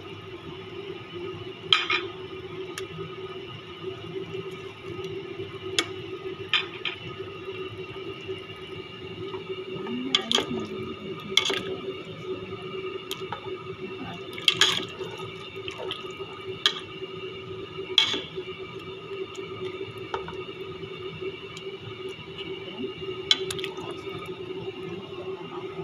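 Tomato sauce simmering in a stainless steel pot while a spatula stirs it, with wet liquid sounds and a dozen or so sharp knocks of the utensil against the pot. A steady hum runs underneath.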